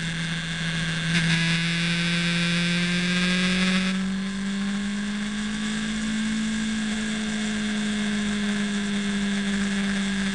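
Motorcycle engine running at a steady cruising pace, its note drifting slowly up and then down, with wind rushing past the moving camera, heavier from about a second in until about four seconds in.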